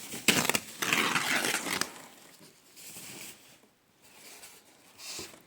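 Packaging being handled during an unboxing: crinkling and rustling, with a few sharp clicks, loudest for about the first two seconds, then quieter handling noise.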